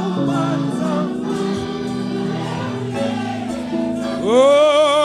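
Gospel worship music: sustained instrumental chords under quiet singing, then a lead voice sweeps up about four seconds in into a long, loud, wavering held note.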